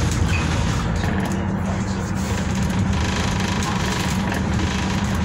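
Double-decker bus in motion, heard from inside on the upper deck: engine running under a steady rush of road and tyre noise, with a steady low engine hum coming up about a second in.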